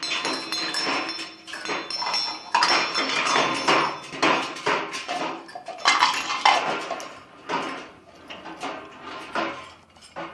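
Rapid, continuous clattering and banging of hard objects, with a metallic ringing after some strikes: loud noise made on purpose to excite the macaw.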